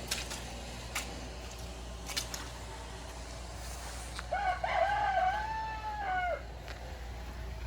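A rooster crows once, about four seconds in: a single call of about two seconds that rises, holds and then drops away.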